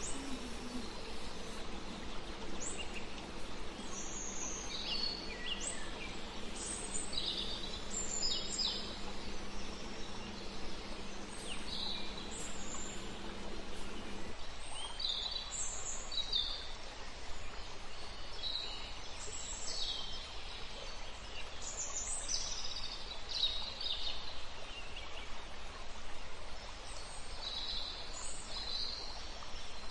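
Birds chirping over and over, short separate calls, over steady background noise. A steady low hum runs underneath and cuts off suddenly about halfway through.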